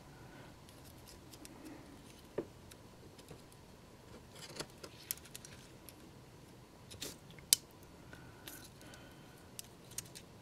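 Small sharp clicks and light scrapes of a small screwdriver prying at a model locomotive's truck to work it free of the frame. The clicks come irregularly, the loudest about seven and a half seconds in.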